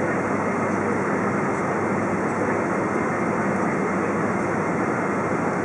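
Steady cabin noise inside a Boeing 777-200 taxiing, its GE90 engines running at low taxi power.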